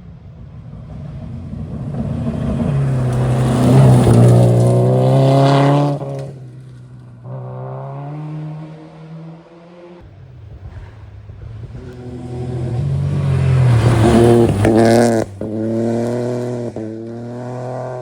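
Two historic rally cars passing one after the other at full throttle. Each engine climbs in pitch, then cuts off sharply as the driver shifts or lifts, with a shorter burst of throttle after each cut.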